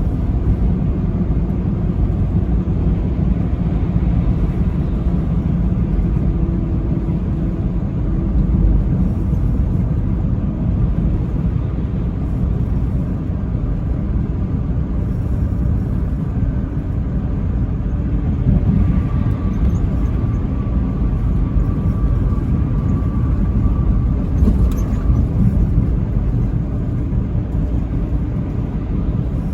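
Truck driving at road speed on the interstate: steady engine and road rumble, with a thin whine joining in for several seconds past the middle.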